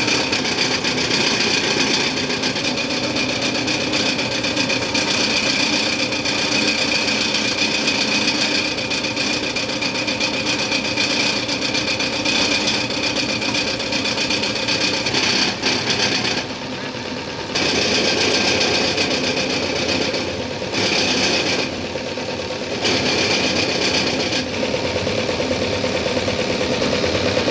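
Toyota 5L four-cylinder diesel engine running at idle with an even diesel clatter, its level dipping briefly twice in the second half.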